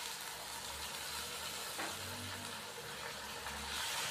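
Onion, tomato and spice masala sizzling in hot oil in a kadai as a little water is poured in, a steady frying hiss that grows louder near the end as the mixture is stirred.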